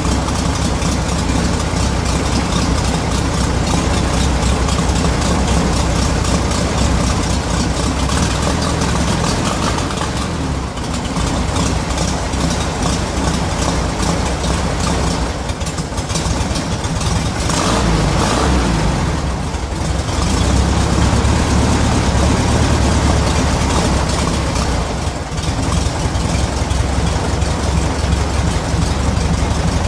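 1969 VW Beetle's air-cooled flat-four engine idling fast with the carburettor choke engaged during warm-up. Its note dips and bends about two-thirds of the way through, then runs on a little louder.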